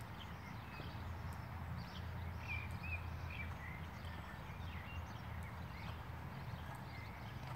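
Outdoor background of a steady low rumble with birds chirping in short rising and falling calls, and faint hoofbeats of a horse working on a sand arena.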